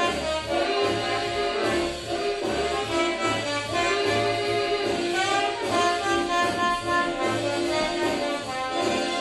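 Swing jazz with horns playing over a pulsing bass line.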